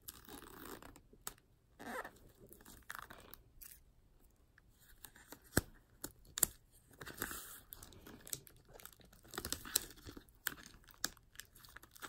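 Clear plastic shrink-wrap being peeled and torn off a cardboard box set, crinkling and crackling in irregular bursts, with a couple of sharp clicks about halfway through.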